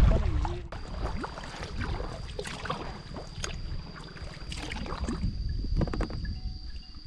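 Kayak paddle strokes dipping and splashing in the water, about one a second, with wind rumbling on the microphone and a thin steady high-pitched whine behind.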